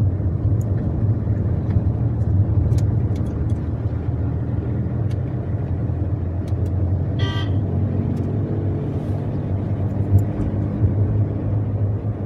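A car driving on a road, with a steady low engine and road rumble, and one short horn toot about seven seconds in.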